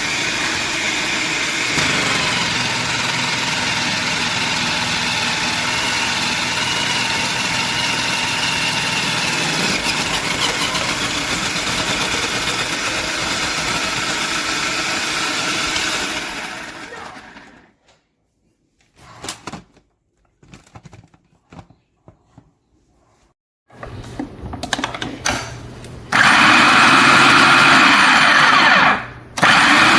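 Electric food processor motor running with a steady whine, winding down about sixteen seconds in. A few clicks of the bowl and lid being handled follow, then the motor runs again from about twenty-six seconds, stopping briefly near the end.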